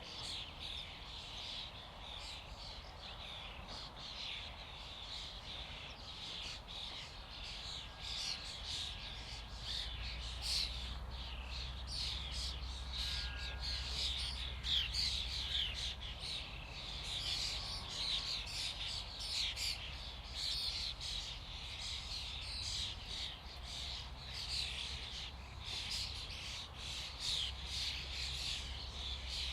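A flock of common starlings calling all at once: a dense, unbroken chatter of many overlapping short whistles, squeaks and rattles, high in pitch.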